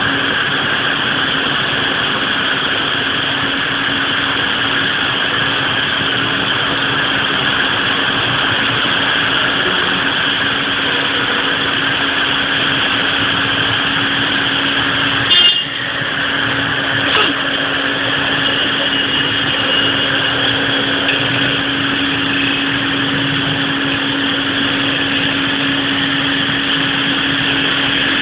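Heavy rain pouring steadily, over a steady low hum. There is one sharp click about halfway through and a fainter one shortly after.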